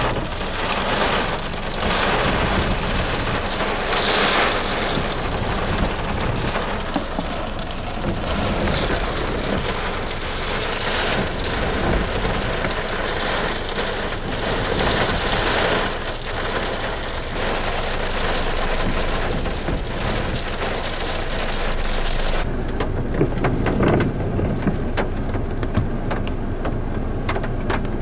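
Heavy rain pelting a car's windshield and roof. A little past twenty seconds in, the hiss loses its high end and the rain sounds softer and duller.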